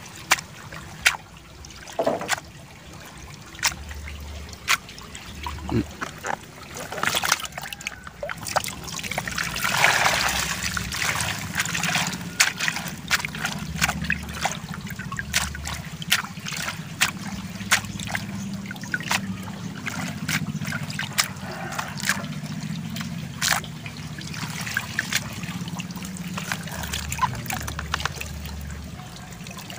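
Water trickling and splashing through a perforated plastic basket of giant gourami fry dipped in a tub of water, with many sharp little taps and splashes throughout. A louder rush of water comes about ten seconds in.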